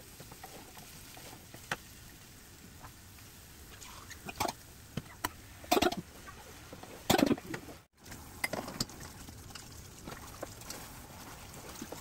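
Cooking sounds at a gas stove: a spatula clinking and scraping against a metal pan, with scattered light clicks and a few louder clanks around the middle.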